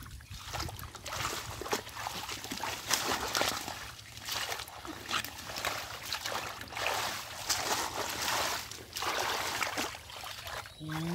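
Shallow muddy water being churned by wading legs and hands groping through mud and water hyacinth: irregular splashing and sloshing.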